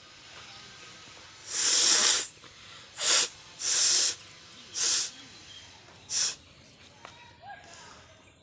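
A person blowing hard through the nose: five separate blasts of breath, the first and longest about one and a half seconds in, then a quick run of shorter ones, the last and briefest around six seconds in.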